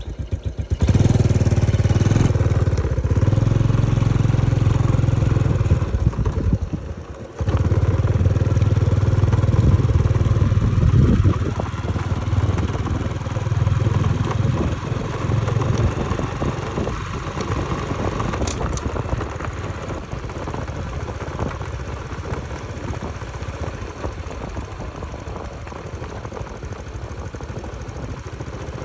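Motorbike engine running while riding, with a brief drop about seven seconds in, then running quieter for the rest.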